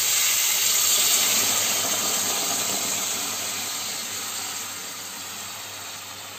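Water hitting a hot kadai of frying chicken curry and potatoes. It hisses and sizzles loudly at first, then slowly dies down.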